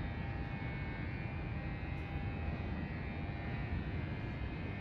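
Steady distant rumble with a faint steady whine from a Shinkansen train approaching along the elevated tracks, still far off, holding an even level.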